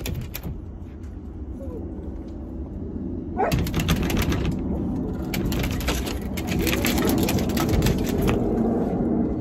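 Wind rumbling on a phone microphone, with irregular rustling and crackling handling noise starting about three and a half seconds in.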